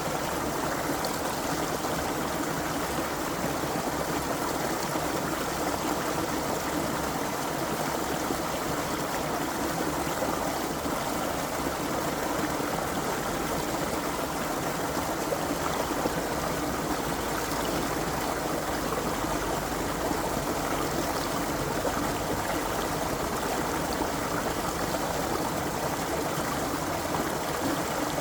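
Creek water running, a steady, even rush of flowing water.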